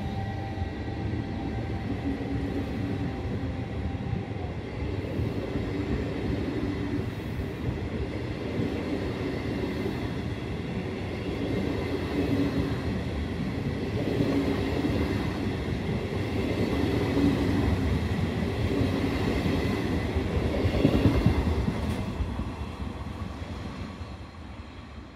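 Passenger train of coaches behind an electric locomotive rolling slowly past close by. A steady rumble of steel wheels on rail carries a repeating clack every couple of seconds as the wheelsets cross the rail joints. It grows louder about twenty seconds in, then fades as the train draws away.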